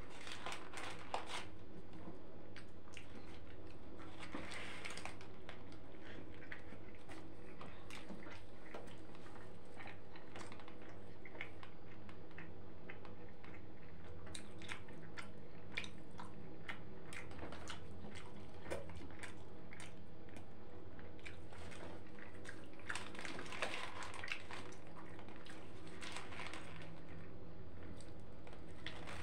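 A person chewing and biting into a shawarma, close up: a stream of wet mouth clicks and smacks, with two longer, noisier bites, one about four seconds in and one near the end.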